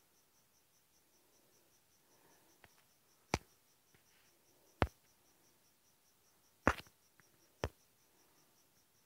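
A cricket chirps steadily in the background, a high pulse about five times a second. Four sharp clicks stand out over it, about a second or two apart.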